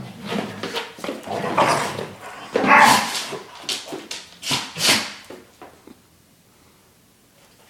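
Two dogs playing, with growling, grumbling and yips, and two short sharp bursts about four and a half and five seconds in.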